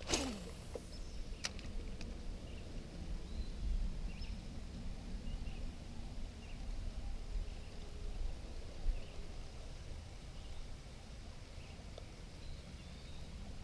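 Quiet riverside ambience: a steady low rumble of wind on the microphone, with faint scattered bird chirps. A short swish comes at the very start, and a light click about a second and a half in.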